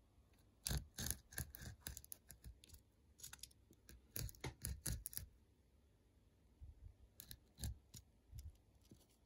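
A rotary cutter's blade rolling through sequin fabric on a cutting mat, cutting through the sequins with rapid runs of sharp clicks. The clicking comes in three spells with short pauses between them.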